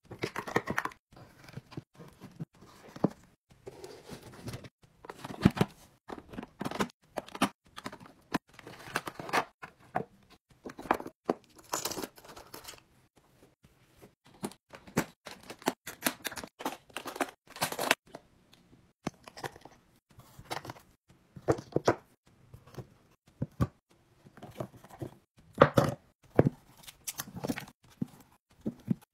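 Irregular clicks, taps and short scrapes of small items being handled and set into a makeup train case: plastic paint pots and tools placed in its trays, bottles set on its shelves. A quieter stretch comes just before the middle.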